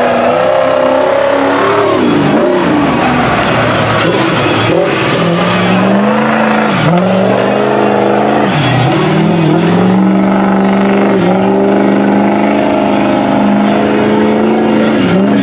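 Lifted Ford Super Duty pickup's diesel engine revving hard as it ploughs through deep mud. Its pitch sags sharply and climbs back several times as the tires bog down and break free.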